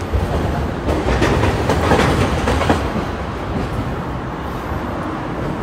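Rumble of a passing vehicle, swelling about one to three seconds in and then easing.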